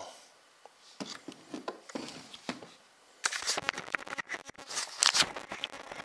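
Handling noise: scattered clicks, taps and rustling as hands move the camera and hard plastic parts around, sparse at first and louder and busier from about three seconds in.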